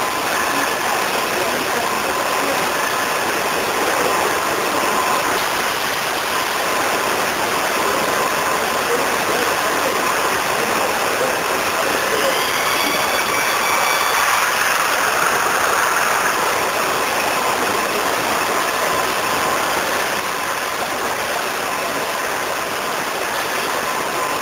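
Emmeti MT582 can depalletizer and its can conveyor running: a steady, dense mechanical clatter and hiss, with a faint rising whine about halfway through as the machine moves.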